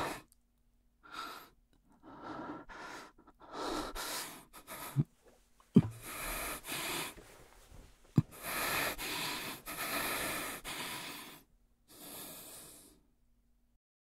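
Heavy breathing of a man close to the microphone: a run of long, breathy breaths, with a few short sharp clicks between them.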